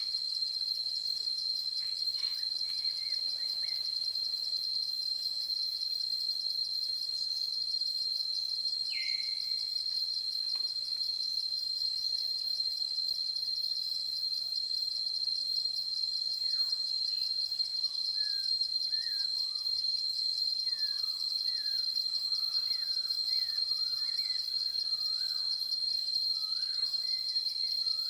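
A continuous high-pitched insect chorus of crickets or similar insects, trilling steadily. A single short call comes around a third of the way in, and birds chirp and warble over it through the second half.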